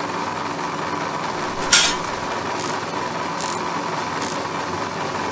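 A miniature DIY rice mill running, its small motor and belt-driven huller making a steady whirring hum. A few short hissing bursts come about once a second, the first and loudest about two seconds in.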